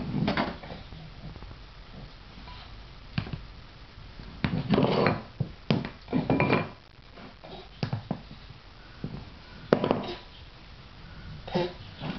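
Dog bowls knocked, tipped and slid over a tile floor by a baby: several sharp knocks of bowl on tile, with scraping and scuffing between them.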